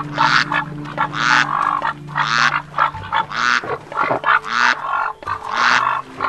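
White domestic geese honking: six harsh calls in a row, about one a second.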